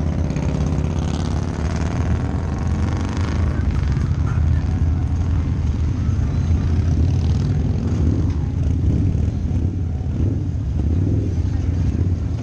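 Harley-Davidson V-Rod's V-twin engine, fitted with a Vance & Hines exhaust, rumbling steadily at low speed amid other motorcycles in slow traffic. A higher engine note rises and falls during the first few seconds.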